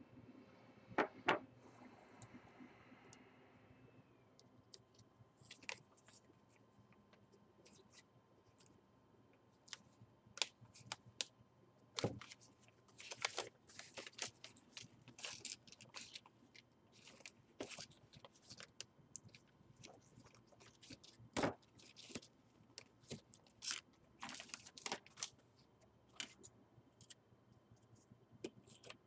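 Plastic film and wrapping on a laptop LCD panel crinkling and crackling as it is handled, with scattered small clicks and taps. There are two sharp clicks about a second in, and the crinkling runs densely from about ten seconds in.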